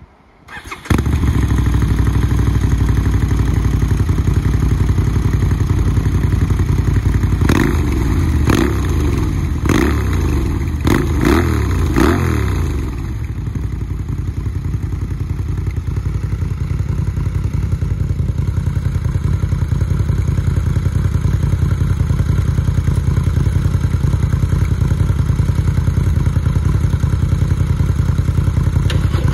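Harley-Davidson V-Rod's liquid-cooled V-twin starting about a second in, then a quick series of throttle blips, each rising and falling, before it settles back to a steady idle through its custom exhaust.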